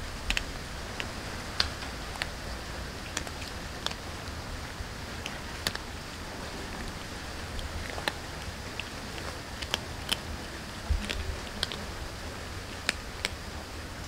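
Several cats crunching dry kibble: irregular sharp crackles, a few per second, over a faint low rumble.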